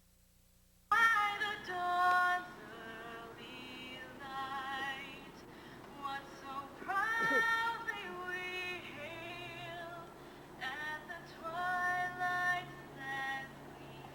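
A woman singing solo in long held notes with vibrato, starting suddenly about a second in after near silence.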